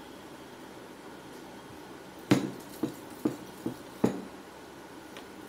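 Rolling pin knocking against a round rolling board as dough is rolled out: about five sharp knocks, roughly half a second apart, starting a little over two seconds in.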